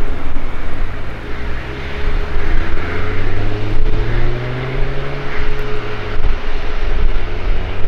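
Airliner engines rumbling loudly as the aircraft passes, with steady engine tones that slowly slide in pitch.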